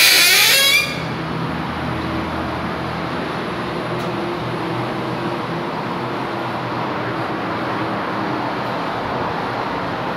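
Steady hum of distant city traffic heard from a high-rise balcony, opening with a brief, loud rushing burst that lasts under a second.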